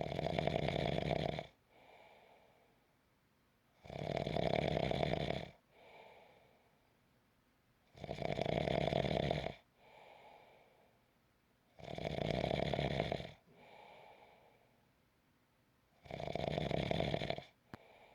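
Steady snoring: five loud snores about four seconds apart, each lasting about a second and a half, with a fainter breath between them.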